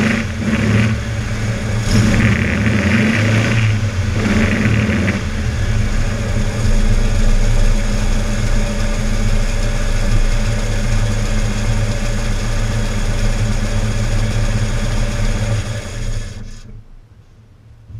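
Air-cooled Volkswagen flat-four engine running, blipped three times in the first five seconds, then idling steadily. The sound cuts off near the end.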